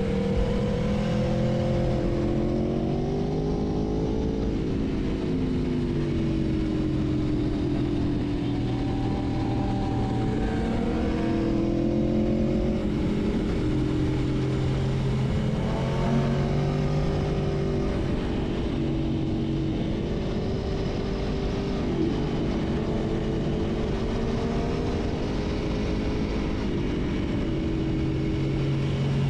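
Sport motorcycle engine running at speed, its note rising and falling in pitch every few seconds with steadier stretches between, over wind noise.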